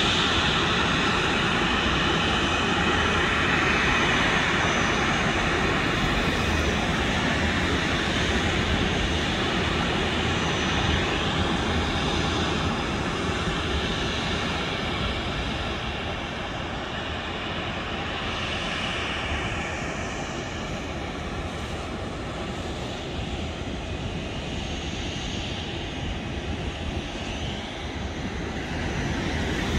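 Jet airliner engines running at an airport apron: a steady, dense engine noise that grows gradually quieter from about halfway through.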